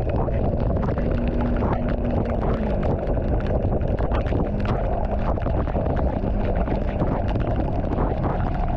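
Steady, loud rumble of a vehicle moving along a road in the rain, with wind buffeting the microphone and a dense crackle of raindrops throughout.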